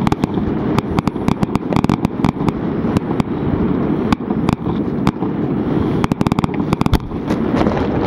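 Fireworks display: a string of sharp cracks and bangs with a quick run of crackling about six seconds in, over a constant low rumble.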